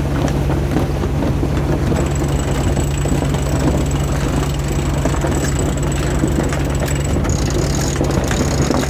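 Sailboat's auxiliary engine running at a steady speed, a constant low drone with a steady hum.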